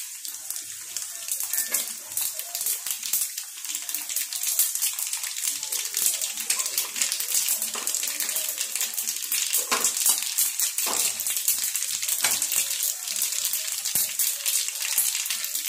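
Tempering of cumin, mustard seeds, dried red chillies and curry leaves sizzling in hot oil in a frying pan, with a steady hiss full of fast crackles and pops. It grows louder about two seconds in.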